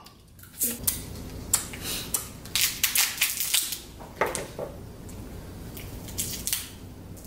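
Crab shell being cracked and picked apart while eating: a string of irregular sharp cracks and crunchy clicks.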